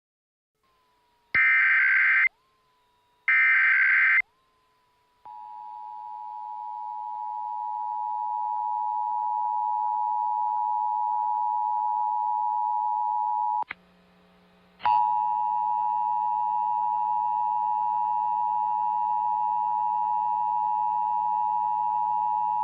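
Two short screeching bursts of Emergency Alert System SAME header data, then the EAS two-tone attention signal (853 and 960 Hz sounding together), a steady harsh tone that swells up over its first few seconds. It breaks off for about a second just past the middle and then starts again at full level.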